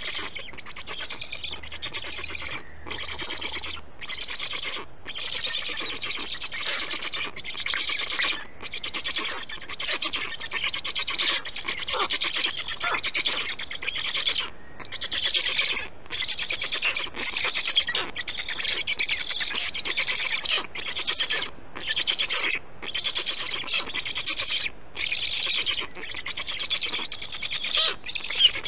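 Black stork chicks in the nest giving a dense, rapid, rasping chatter of begging calls, broken by many brief pauses.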